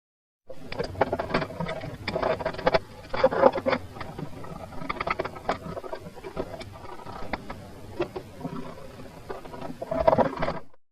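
Irregular clicks, knocks and scraping from hand tools being worked on car parts while stripping down the Mini.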